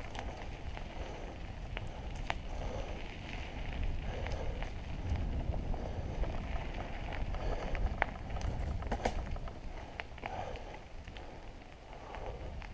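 Mountain bike tyres rolling over a dry, leaf-strewn forest trail: a steady low rumble with crunching swells and scattered sharp crackles and clicks as the wheels pass over leaves and twigs.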